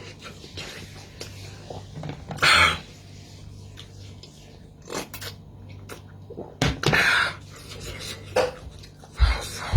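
Eating sounds close to the microphone: a few short, noisy bursts of chewing and utensil noise, the loudest about two and a half seconds in and another pair around seven seconds, over a steady low hum.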